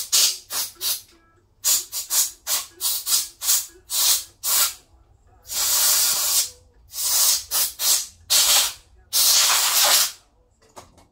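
Compressed-air blow gun fired in many short, sharp hissing blasts, with a couple of longer blasts of about a second each, blowing dirt out of the chainsaw's screw heads.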